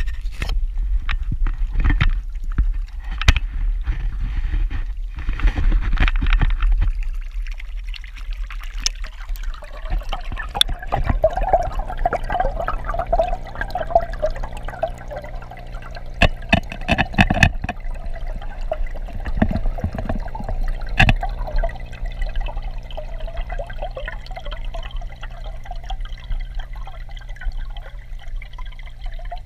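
Muffled pond water heard through a GoPro submerged in a goldfish pond: gurgling and trickling with a steady low hum underneath, and a few sharp knocks. Before the camera goes under, the first several seconds hold scattered clicks and knocks.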